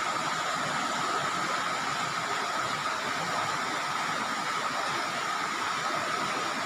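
Shallow stream rushing over rocks in small rapids: a steady, even rush of water.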